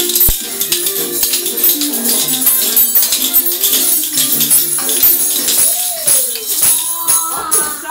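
Music with jingling hand percussion shaken in a quick, steady rhythm over a simple stepping melody, with one sliding pitch about six seconds in.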